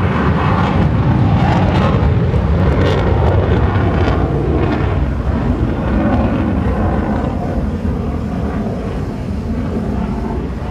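Loud engine noise of an airplane flying overhead, steady and a little quieter near the end.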